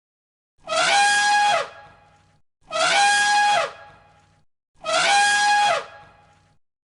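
An animal call sounded three times, about two seconds apart, each identical: a loud cry about a second long that rises at the start, holds one steady pitch, then drops away.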